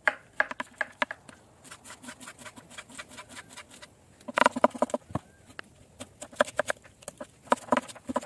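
Chef's knife chopping onion on a wooden cutting board: a run of quick, sharp knocks of the blade on the board, coming in a faster, louder burst about four seconds in and again near the end.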